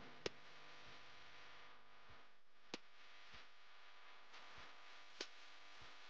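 Near silence with three faint, sharp clicks about two and a half seconds apart.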